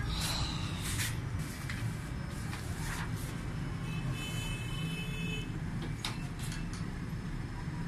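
Wide-format scanner-copier running with a steady low hum, a few sharp clicks and a brief high whine near the middle as it handles a large drawing sheet.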